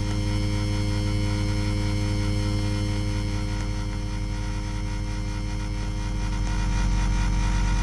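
Ceiling fan running: a steady motor hum with a noisy whir over it, growing a little louder near the end.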